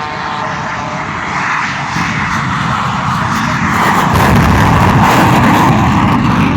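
Shockwave jet truck's three jet engines on afterburner racing past together with an aerobatic biplane's engine. The roar is loud throughout, swells about four seconds in, and is loudest near the end.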